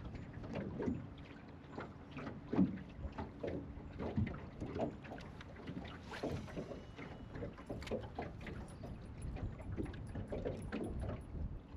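Small choppy waves lapping and slapping irregularly against the hull of an aluminum jon boat, with light wind.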